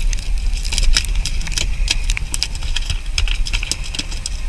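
A fishing boat's engine running steadily with a low rumble, with frequent sharp clicks and knocks over it.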